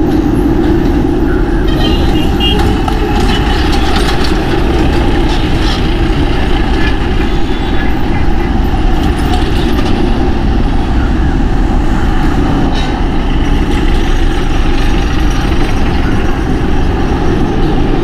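Steady road and wind noise from riding a motorcycle in traffic: wind rushing over the microphone with the sound of surrounding vehicles.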